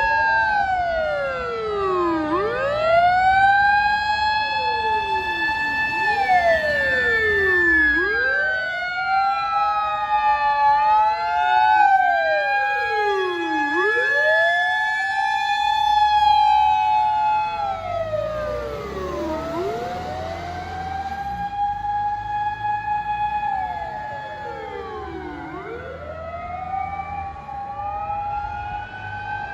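Fire engines' mechanical motor sirens wailing, each rising to a held high note for a few seconds and then falling, about every five to six seconds. Two sirens overlap out of step over low truck-engine rumble, with a brief hiss about two-thirds of the way through.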